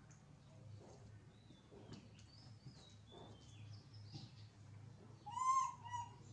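Baby macaques squeaking with thin, high chirps, then one louder drawn-out cry about five seconds in, followed by a shorter cry.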